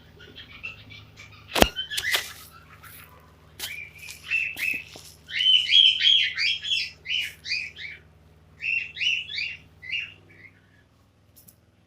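Female cockatiel chirping: two quick runs of short, repeated chirps with a brief break between them, after a single sharp click a little over a second in.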